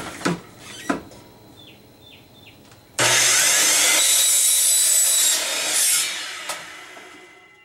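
A miter saw starts suddenly about three seconds in and its blade cuts through 3-inch Schedule 40 PVC pipe. The saw is then released and winds down, fading away. A few knocks from the pipe and saw being handled come first.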